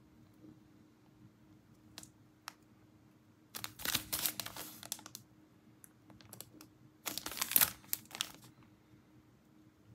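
Plastic blister packaging crinkling and rustling as it is handled, in two bursts, the first about three and a half seconds in and the second about seven seconds in, after two light clicks.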